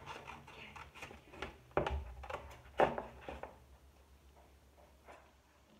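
Handling noise on a wooden worktable: two sharp knocks about a second apart, with light rustling and small clicks around them, then quieter.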